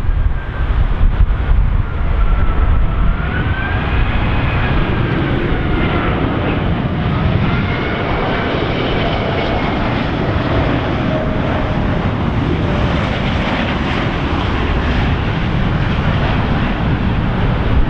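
Airbus A380-841's four Rolls-Royce Trent 970 turbofans on low final approach, passing close: a loud, steady jet rumble with whining fan tones that slide up and down in pitch.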